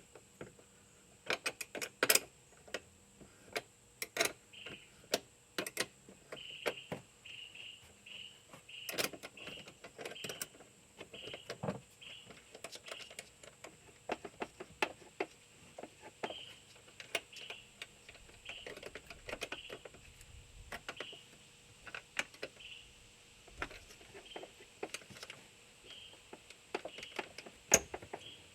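Irregular metallic clicks and clinks of hand tools working at a car battery's terminals and hold-down. From about four seconds in, a short rasp repeats every half second or so.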